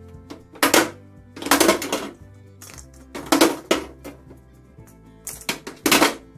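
Plastic toy capsules dropped into the top of a toy capsule vending machine, clattering against one another in several bursts, over background music.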